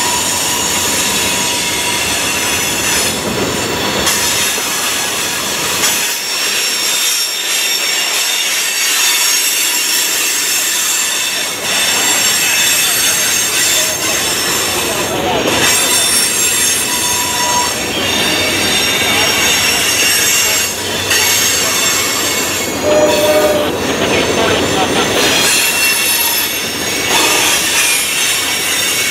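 Loaded freight cars of a mixed manifest train rolling past close by, their steel wheels squealing against the rails in several steady high-pitched tones over a continuous rumble and clatter.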